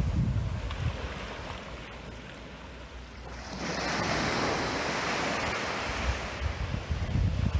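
Small waves breaking on a sandy beach and washing up the shore on calm sea water. The wash swells into a steady hiss about halfway through and eases off near the end, with wind buffeting the microphone at the start.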